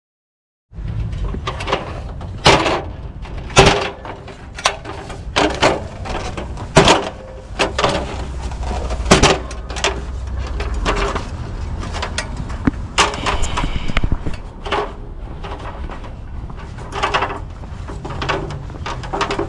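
A string of irregular knocks, clunks and bumps, some sharp and loud, over a steady low rumble.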